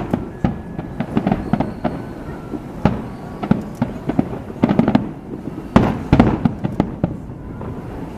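Aerial fireworks bursting: a rapid, irregular series of sharp bangs and crackles, with denser volleys about halfway through and again about six seconds in.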